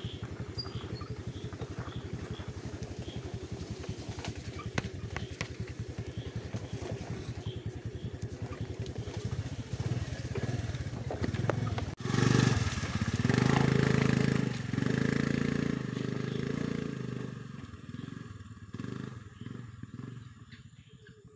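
Honda Dio scooter engine running with an even pulsing beat on a dirt trail. About halfway through it revs louder under load, then fades as the scooter climbs away up a rocky slope.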